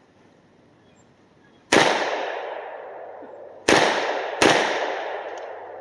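HK UMP 45 submachine gun firing three single semi-automatic shots of .45 ACP, each with a long echo dying away. The first stands alone, and the last two come less than a second apart.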